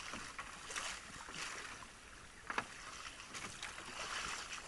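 Water splashing and swishing around a small paddled outrigger canoe, with one sharp knock about two and a half seconds in.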